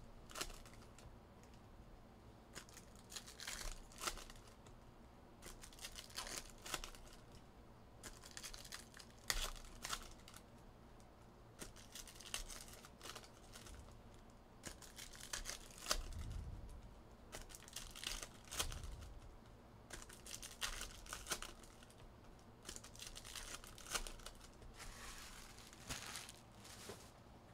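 Trading-card pack wrappers being torn open and crinkled, in short bursts every second or two, with a couple of soft low thuds near the middle.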